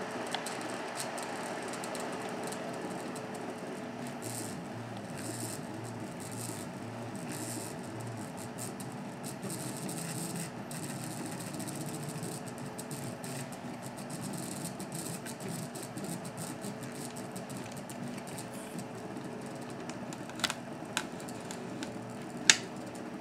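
Printrbot 3D printer running a print: its stepper motors whir in tones that shift in steps as the extruder head moves, over a steady hum from the part-cooling fan running at 100%. A few sharp clicks near the end.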